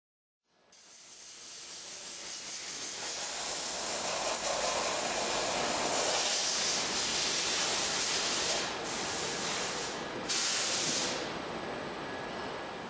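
Pneumatic rotary table and pneumatic press running, with a steady hiss of compressed air that fades in over the first few seconds. Near the end come two louder bursts of air hiss, each cutting off suddenly, like valve exhausts.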